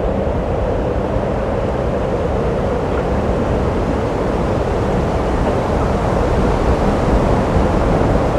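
Steady rumbling and rushing noise of a boat under way on open water, with wind buffeting the microphone.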